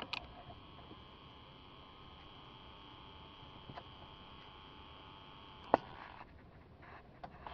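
Heater temperature blend-door actuator motor on a 2000 Chevrolet 1500 truck: a click, then a faint steady hum as it drives the door, ending with a sharp click nearly six seconds in, with a few light ticks near the end. The owner judges this motor worn out and not always able to drive the door.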